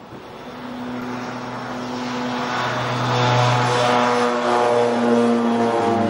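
Twin-engine propeller airplane taking off and climbing, its propeller drone growing steadily louder, with the pitch of the drone shifting a few times.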